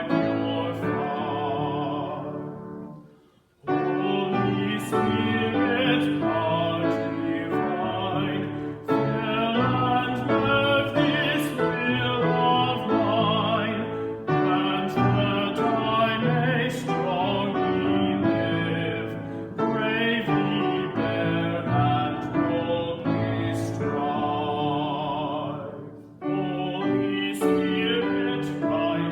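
A singer with a strong vibrato, accompanied by piano, performing a sacred song. The music breaks off briefly about three seconds in and again near the end, between phrases.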